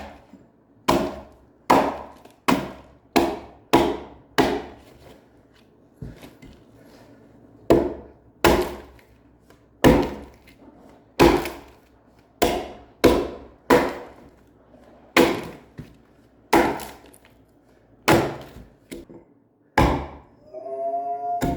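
Axe blows biting into a freshly cut spruce log during hand hewing: a series of sharp woody chops, some in quick runs of two or three and others after short pauses. A short pitched sound, like a brief voice, comes just before the end.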